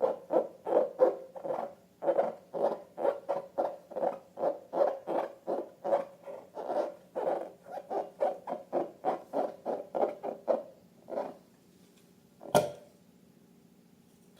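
Latex balloons squeaking in a quick rhythm as they are rubbed and squeezed, about three squeaks a second, stopping near the end. A single sharp snap comes shortly after.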